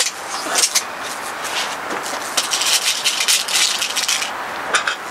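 Crosman Shockwave .22 break-barrel air rifle being handled: a sharp snap at the start, then a run of small clicks, scrapes and rattles for about four seconds, with a couple more clicks near the end, as the rifle is cocked and a pellet loaded for the next shot.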